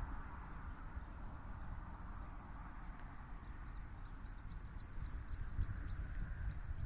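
A bird singing a run of short, high, repeated notes, about four a second, starting about halfway in, swelling and then fading, over a low steady rumble.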